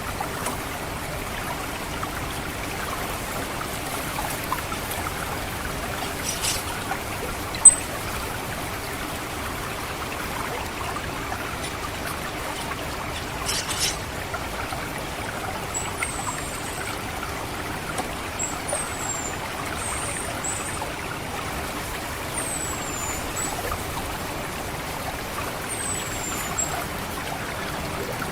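Water trickling steadily through a rice paddy. Over it, an orange-headed thrush gives thin, high, downward-sliding call notes, the 'ngecit' call, about five times in the second half. A single sharp high note about a quarter of the way in is the loudest sound.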